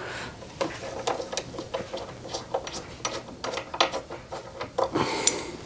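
An irregular run of small metallic clicks and clacks from hand tools and bolts being worked on the motorcycle's rear hardware, with a brief louder rustle about five seconds in.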